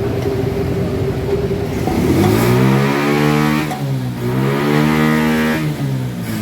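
An engine revved up twice, its pitch rising and falling with each rev.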